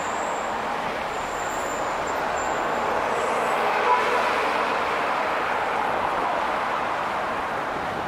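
Steady city street traffic, cars and a truck passing close by, the noise swelling a little through the middle. A faint high-pitched whine is heard in the first few seconds, and a brief sharp sound about four seconds in.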